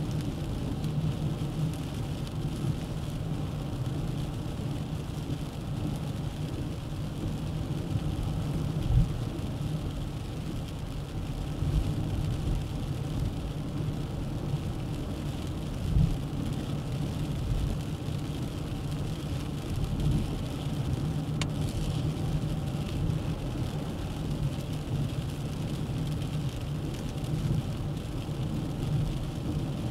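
Steady low road rumble of a Dacia Duster 1.3 TCe 4x4 driving at speed, tyre and engine noise with a few short low thumps along the way.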